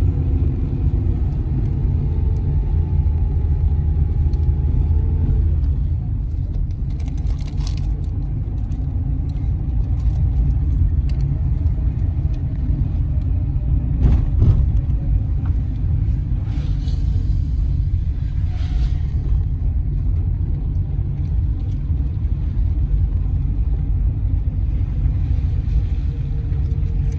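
Steady low rumble of a car driving along the road, engine and road noise, with a few faint clicks and knocks.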